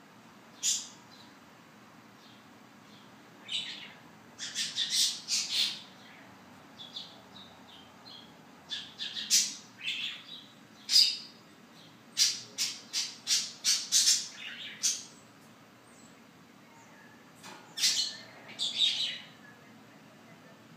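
Birds squawking and chirping in short, sharp, high-pitched calls that come in bunches of several at a time.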